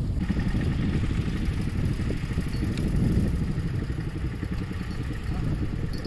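An engine running steadily, with a dense low pulsing.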